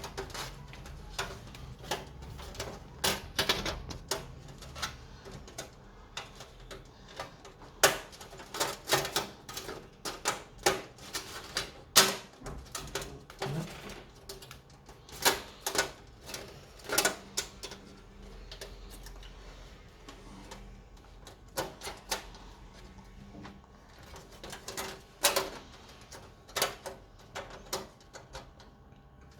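Irregular plastic and metal clicks and taps of computer parts being handled and pressed into place in a PC case.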